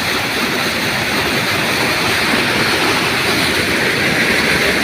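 Loud, steady rushing of a waterfall's cascading water.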